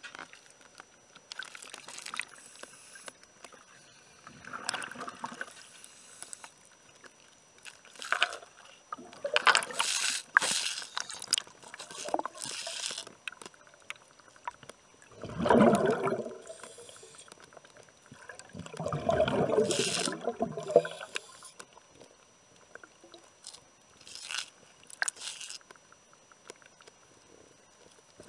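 Water bubbling and sloshing around a camera moving underwater along a weed-covered boat hull, in irregular bursts of a second or two with quieter gaps between.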